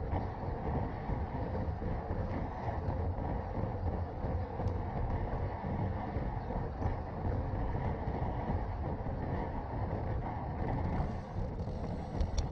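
Steady rushing of riding wind on a handlebar-mounted action camera's microphone, mixed with a road bike's tyres rolling on asphalt. A few light clicks near the end.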